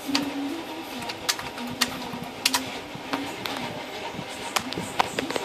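About a dozen sharp, irregular clicks, like keys or buttons being pressed, over a steady low background hum.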